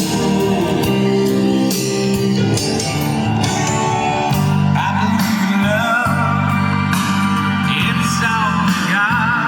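A song with singing and guitar, played through the car's newly tuned speaker system, which has no subwoofer fitted yet.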